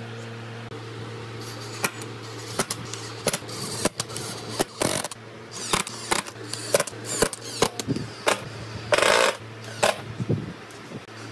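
Cordless drill-driver driving short screws through a fabric strap into wooden slats, in a quick run of brief bursts one after another, with one longer drive near the end. A steady low hum runs underneath.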